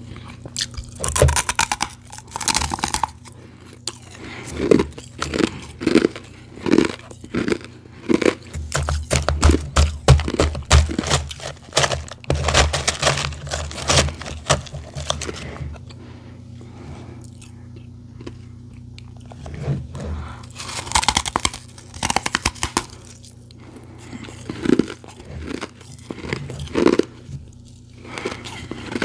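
Close-miked biting and chewing of refrozen powdery ice: many crisp crunches in irregular clusters, with a quieter pause partway through, along with fingers digging through ice in a plastic tub. A steady low hum runs underneath.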